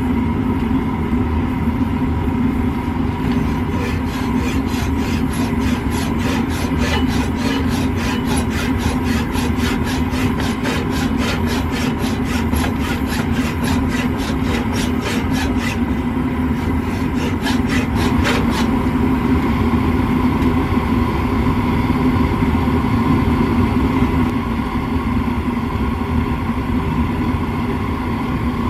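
Propane forge burner running with a steady drone. From a few seconds in until about two-thirds through, fast rhythmic scraping strokes, about four to five a second, as steel held at the vise is worked by hand.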